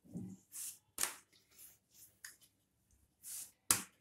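Hands turning a disc of maida dough and a wooden rolling pin rolling it out on the counter: a string of short, dry scuffs and rustles, with a sharper tap near the end.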